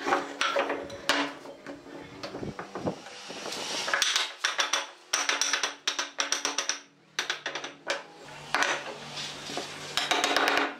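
Runs of quick, sharp wooden knocks as a block of wood is tapped against the table frame to drive the rails' tenons into the leg mortises. Background music plays underneath.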